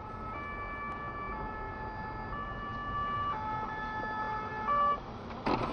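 Two-tone emergency vehicle siren, switching between a high and a low pitch about once a second. A sharp knock comes near the end.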